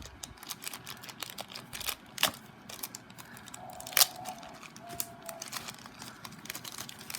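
Small toy packaging being handled and opened by hand: scattered crinkling and light clicks and taps, with a sharper click about four seconds in.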